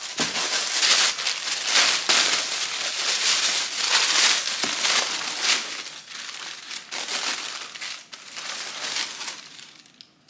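Crinkled packing paper rustling and crackling as it is pulled out of a shoe box, loudest over the first half, then softer handling that dies away just before the end.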